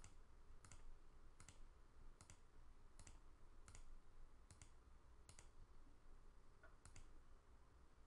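Faint computer mouse clicks, about nine of them under a second apart, each a quick press-and-release pair.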